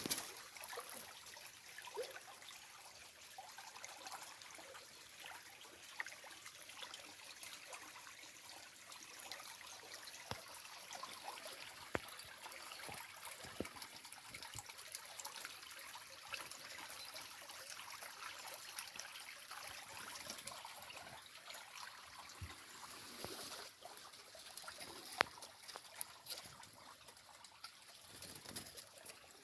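Sewage wastewater trickling in a faint, steady flow, with a few small clicks here and there.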